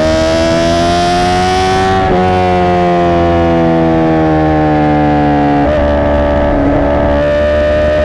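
Honda CBR1000RR SP1's inline-four engine running hard through a Racefit Growler X exhaust, heard from the rider's seat. Its note climbs for the first two seconds, breaks briefly about two seconds in, sags slowly until another short break near six seconds, then climbs again.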